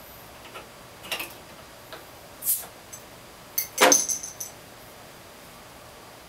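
A beer being opened: a few light clicks, a short hiss about two and a half seconds in, then a sharp metallic clatter with brief ringing a little later.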